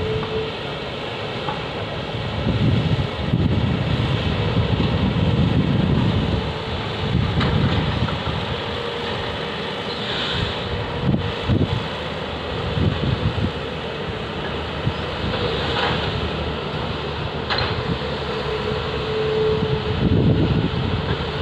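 Heavy diesel engines of Volvo 460 mining tippers and excavators running, with a steady drone and a faint whine that comes and goes. Gusts of wind buffet the microphone throughout.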